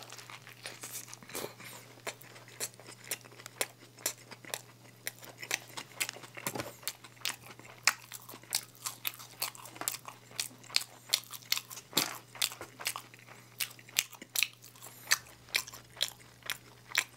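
Close-miked biting and chewing of crispy fast food: an irregular run of sharp crunching clicks, several a second.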